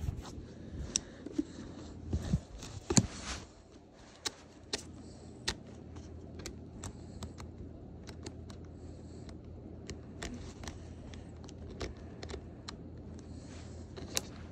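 Handling noise right at the phone's microphone: scattered light clicks and taps with faint rustling, the louder knocks coming in the first three seconds.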